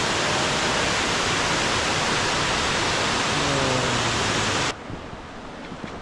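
Waterfall rushing, a loud, steady noise of falling water close by. It cuts off abruptly about three-quarters of the way through, leaving only a much quieter background hiss.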